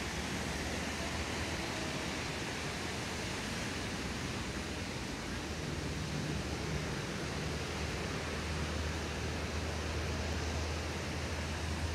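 Steady rushing of water over a river weir, with a low steady rumble underneath that grows stronger in the second half.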